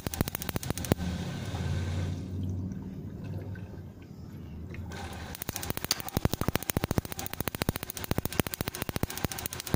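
Gas water heater's electronic igniter ticking rapidly, several sparks a second. It breaks off for a few seconds into a low rushing hum, then starts ticking again, which is taken as a sign of a faulty gas solenoid valve.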